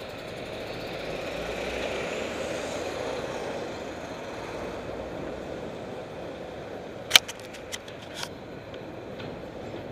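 Dump truck's diesel engine running, loudest as the truck is passed and then fading, over road and wind noise. Near the end, a quick cluster of sharp knocks and rattles.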